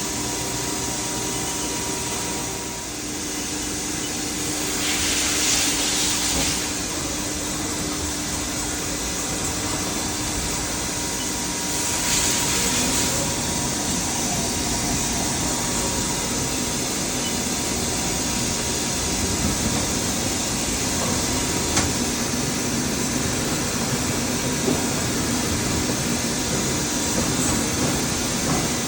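Haas ST-30SSY CNC lathe running, a steady mechanical hum under a constant hiss. The hiss swells louder twice, about five and twelve seconds in.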